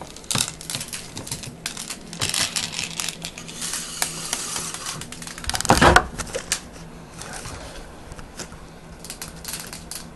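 Plastic airsoft BBs rattling and clicking as an airsoft magazine is loaded by hand, in quick runs of small clicks, with one louder knock just before six seconds in.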